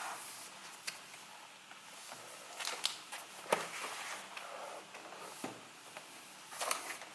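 Cardboard and plastic packaging being handled: rustling and scraping with several sharp clicks and taps.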